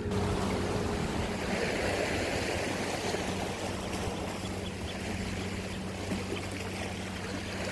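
Seawater washing and lapping against the shore rocks, an even rushing noise, under a steady low hum.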